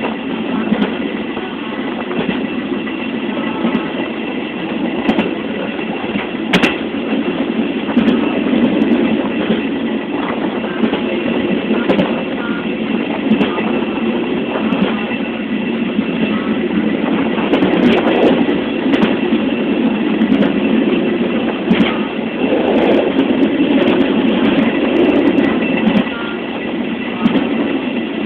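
Train running along the track, heard from an open wagon: a steady rumble with scattered sharp clicks of the wheels over the rails.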